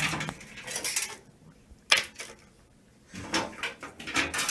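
Cables being moved about inside a steel PC case: irregular rustling and scraping, with a single sharp click about two seconds in.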